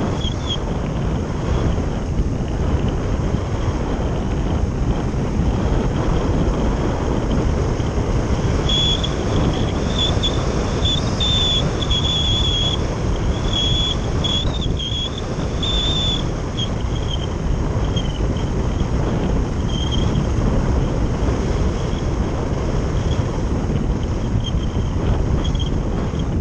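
Airflow rushing over the microphone of a camera mounted on a glider in flight: a loud, steady wind roar. For a few seconds in the middle it carries short, faint high whistling tones.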